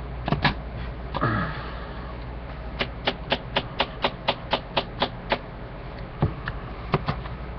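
A quick, even run of about a dozen sharp taps, about four a second, typical of a can of dip tobacco being packed by tapping its lid, with a few single taps before and after.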